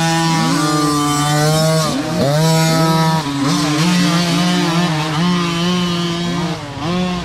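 Small pee-wee dirt bike engines running at high revs as the bikes ride past one after another, the engine note dipping and climbing back several times as the throttle is rolled off and on.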